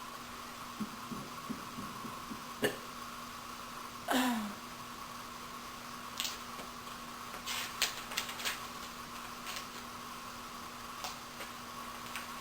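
Steady electrical room hum with scattered light clicks, and one short low sound about four seconds in that drops in pitch.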